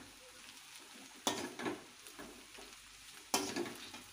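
Steel spoon stirring spiral pasta and masala in a metal kadai, scraping and knocking against the pan, loudest twice, about a second in and again past three seconds. A faint steady sizzle of frying runs underneath.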